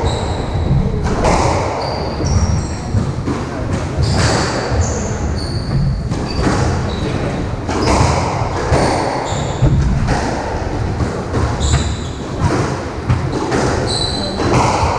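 Squash rally: the ball cracks off the rackets and the court walls again and again, with short high squeaks of shoes on the wooden court floor between the shots.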